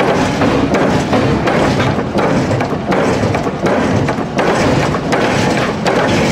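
Forge-shop din from a forging press working a red-hot axe head: a loud, steady noisy rumble with irregular heavy thuds.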